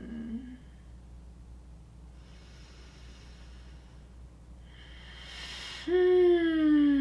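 A voice warm-up breath: a soft breath in, then a forceful exhale rushing through the nose about five seconds in. Near the end it turns into a closed-lip hum that starts high and slides down in pitch, the pitched sigh of the exercise.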